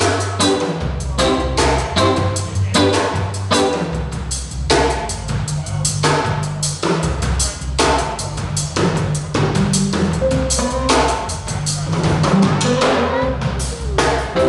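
Live band playing at a sound check: a drum kit keeps a steady rhythm of kick and snare hits under a moving bass line and other instruments.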